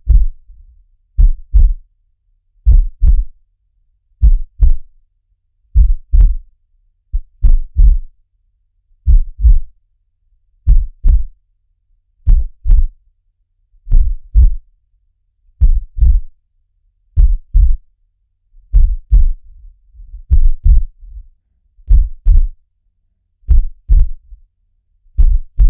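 Heartbeat sound, a steady, slow lub-dub. Pairs of low thumps come about every one and a half seconds.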